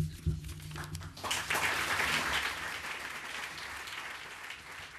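Audience applauding at the end of a speech, starting about a second in and slowly fading.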